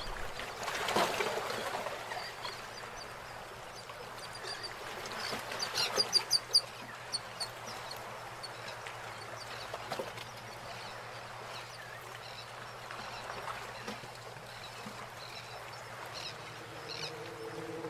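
Paintbrush bristles rasping over paper in quick back-and-forth strokes, with a run of short scratchy strokes about six seconds in, over a faint steady hum.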